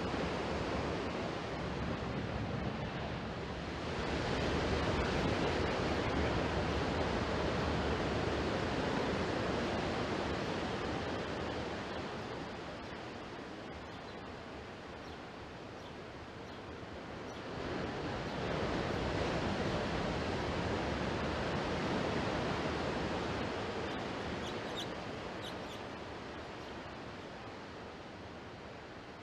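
Sea waves washing ashore in slow swells, surging about four seconds in and again around eighteen seconds, then easing back.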